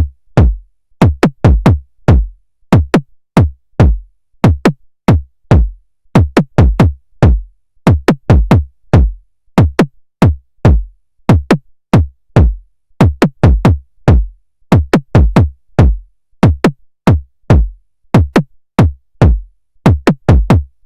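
Drum-machine kick drum playing alone in a syncopated beat of single and paired hits. Each hit is a sharp click that drops quickly into a deep low thump.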